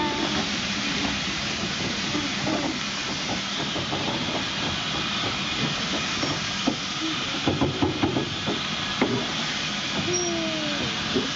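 Steam hissing steadily from a stationary steam tank locomotive, escaping low down at its side. A few sharp knocks come about halfway through, and a short falling squeal near the end.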